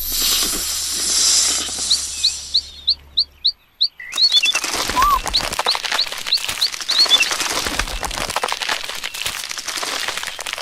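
Series of short, high bird chirps, about three a second, over a hissing noise that fades out. About four seconds in, a sudden cut to a busy, crackly outdoor ambience with a second run of chirps.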